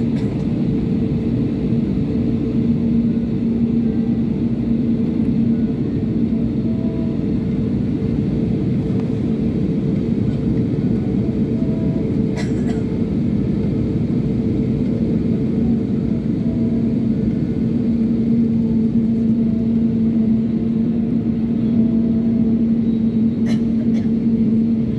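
Steady drone of a jet airliner's engines and air system heard inside the passenger cabin on the ground, with a constant low hum of two tones. Two faint clicks, about halfway and near the end.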